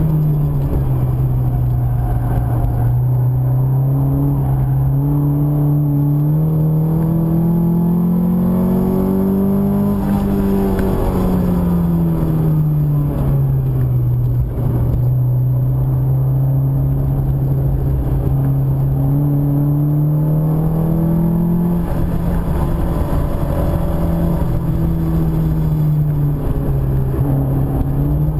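Car engine heard from inside the cabin while lapping a circuit. The note climbs steadily for about ten seconds, falls, holds level, then climbs again before dropping suddenly about twenty-two seconds in.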